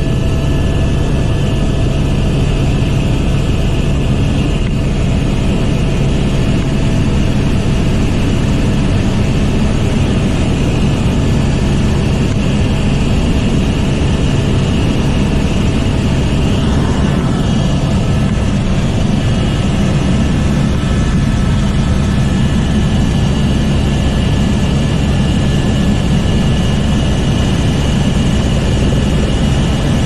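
Helicopter in flight heard from inside the cabin: a steady, loud drone of engine and rotor with a few constant whining tones above it.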